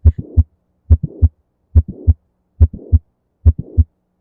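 Recorded heart sounds of mitral valve prolapse: a mid-systolic click with a late systolic murmur in each beat. The beats repeat evenly, about five in four seconds, each a sharp thump followed by a short rough murmur and a second heart sound.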